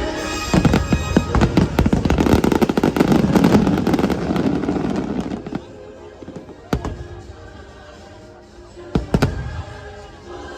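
Fireworks show: a dense barrage of rapid bangs and crackles for about five seconds, then a few single booms. Music plays underneath throughout.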